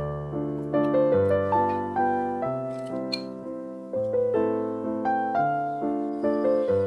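Background piano music: a steady run of single notes and chords, each struck and fading. A brief click about three seconds in.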